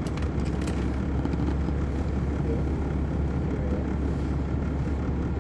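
2006 MCI D4500CL coach's Caterpillar C13 ACERT inline-six diesel running steadily, a constant low drone heard from on board the bus.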